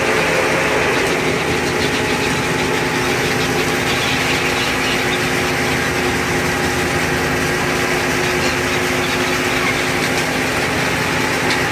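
A fishing boat's engine or deck machinery running steadily: a constant hum made of several held tones over a hiss, with no change in speed.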